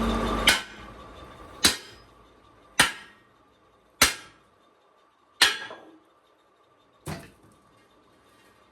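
Six hammer blows on steel, about one every second and a half, each ringing briefly before it fades; the last one is weaker.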